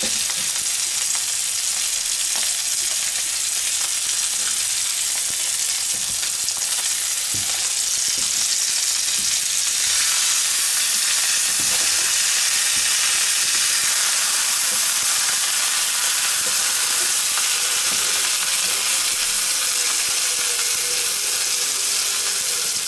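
Burger buns toasting in fat in a frying pan beside a cheese-topped patty, a steady frying sizzle, with a few light knocks of a spatula against the pan.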